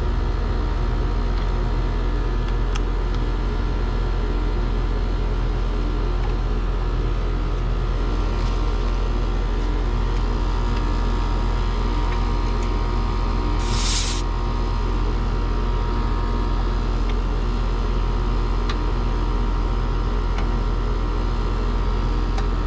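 Trane XR heat pump outdoor unit running steadily, a continuous hum of compressor and fan with several steady tones. A brief hiss about fourteen seconds in.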